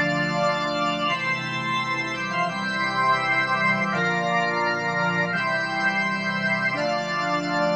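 Organ-like keyboard music with long held chords, the chord changing every one to three seconds, played through a Monster Firecracker portable Bluetooth speaker.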